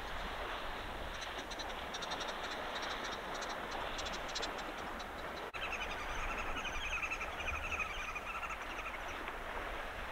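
Steady wind on the microphone and water noise around elephants wading in a muddy dam, with faint high clicks in the first few seconds. About halfway through the sound cuts, and a small animal's rapid pulsing trill runs for about three seconds.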